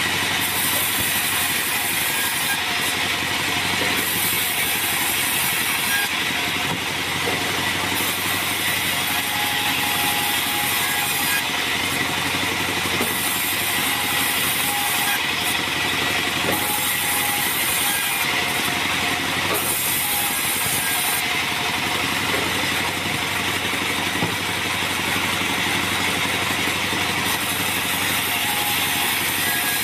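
Band sawmill running steadily as acacia wood is fed past its blade and sawn into boards; its drive engine keeps an even, unbroken note with no change in speed.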